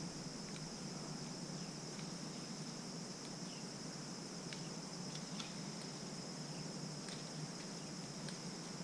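Steady, high-pitched insect chorus, with a few faint clicks scattered through it.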